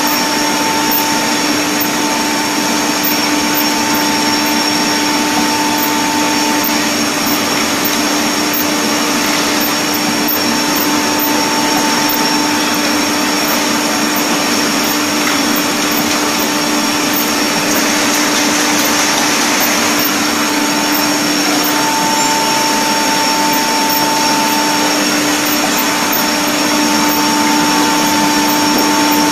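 Automatic pickle filling machine and its production line running: a steady, loud mechanical din with a constant hum and a higher whine that fades out and returns a few times.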